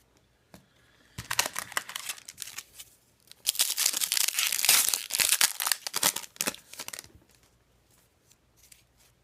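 A hockey card pack's wrapper being torn open. There is a short rip about a second in, then a louder stretch of tearing and crinkling that lasts about three and a half seconds before dying away to a few faint rustles.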